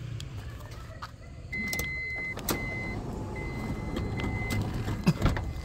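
Toyota Vellfire's power sliding door running on its motor after the key-fob button is pressed, closing, with its warning buzzer sounding a string of long beeps at one steady pitch. A thump about five seconds in.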